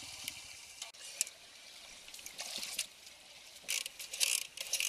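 Shallow river water rushing as a faint steady hiss, with scattered clicks. About three and a half seconds in comes a run of louder clicks and clatter.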